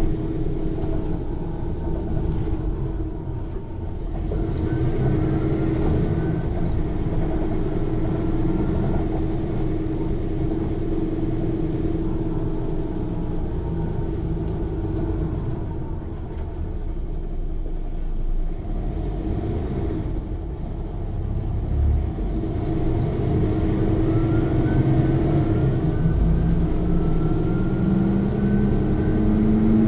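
Interior of a Mercedes-Benz O 405 N1 city bus under way: its six-cylinder diesel engine running loudly with a steady drone and rumble, easing off briefly twice and pulling harder again, its pitch climbing near the end. A rising whine from the rear axle gearing comes through over the engine as the bus gathers speed.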